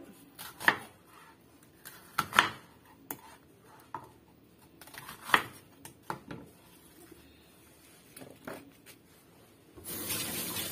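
Kitchen knife cutting an onion on a cutting board: a handful of separate sharp knocks as the blade meets the board, spaced unevenly. Near the end a kitchen tap runs over hands.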